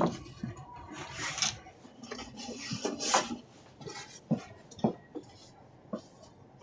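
Someone working at a door lock: rustling with scattered metallic clicks and sharp knocks, several single knocks standing out in the second half.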